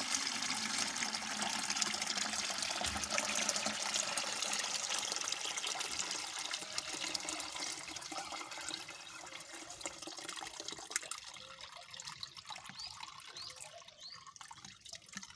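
Homemade liquid bleach poured from a bucket through a cloth filter stretched over a sieve, a steady splashing rush of liquid. The flow eases after about eight seconds and thins to a trickle and drips near the end.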